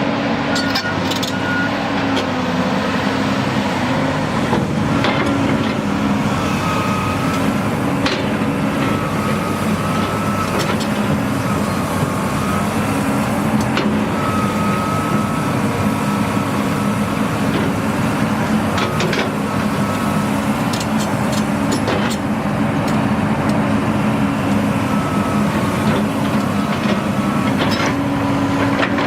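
John Deere 330C LC crawler excavator's diesel engine running steadily, with a higher whine that wavers up and down and occasional sharp metallic clanks.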